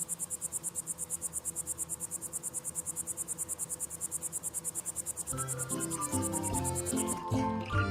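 Insects chirping in a fast, even pulse of about nine chirps a second. Plucked-string music comes in about five seconds in, and the chirping cuts off shortly before the end.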